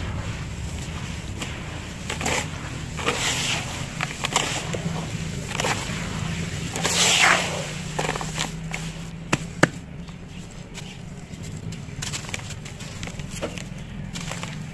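Hands crumbling dry cement lumps and powder in a tub: irregular gritty crunching and scraping, with a longer rush of falling grit about seven seconds in and two sharp clicks soon after.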